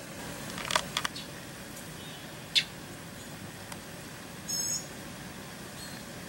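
Steady outdoor background with a few short, sharp high-pitched ticks: three close together about a second in and one more near the middle. There is a brief high buzzy tone about four and a half seconds in.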